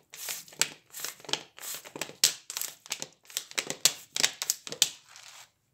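1.5-litre PET plastic bottle crackling and crinkling in a string of irregular sharp crackles as it is handled and the soaking water is drained out of it. The crackling stops shortly before the end.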